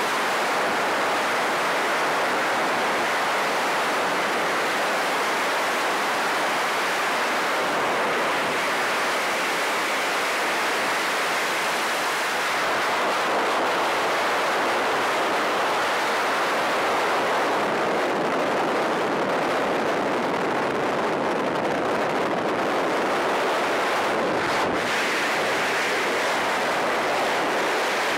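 Steady rush of freefall wind blasting across a skydiving camera's microphone.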